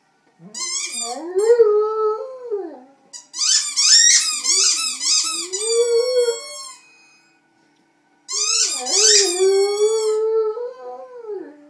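A Dalmatian howling in long notes that rise and fall, along with rapid high squeaks from a squeaky toy under its mouth, in three bouts with short silences between.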